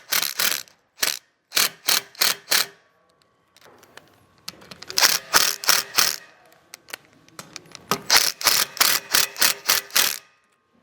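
Cordless impact driver with a 6mm hex bit running bolts home, hammering in several short bursts of rapid sharp clicks with brief pauses between them. The bolts are being tightened to fasten a table foot to its column.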